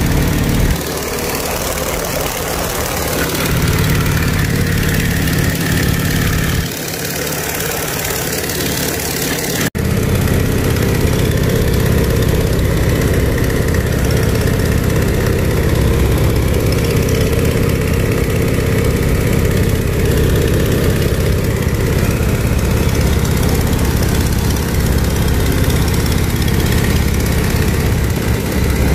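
Boeing Stearman biplane's radial engine running steadily in flight, a continuous drone with wind rushing past the open cockpit. About ten seconds in the sound cuts and the drone comes back slightly louder.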